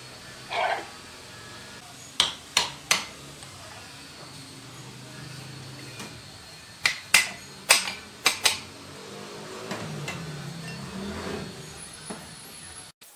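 Hammer striking metal in sharp blows: three quick strikes about two seconds in, then five more between about seven and eight and a half seconds.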